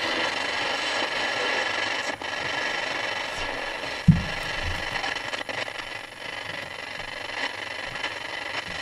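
GE P-720 AM transistor radio's speaker hissing with static and a steady high-pitched whistle, with a single low thump about four seconds in. The interference is what the owner puts down to the camera held close to the radio.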